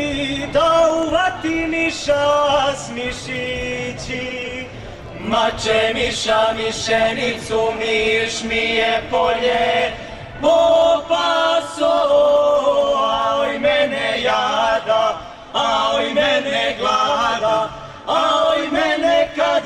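A Serbian folk vocal group singing in traditional style, several voices together in phrases with brief breaks between them.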